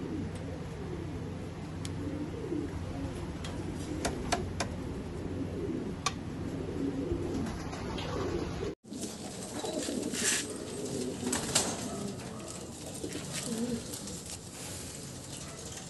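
Domestic pigeons cooing over and over, with scattered sharp clicks. A faint steady hum lies under the first part. The sound cuts out abruptly for an instant about nine seconds in and resumes with more cooing over a noisier background.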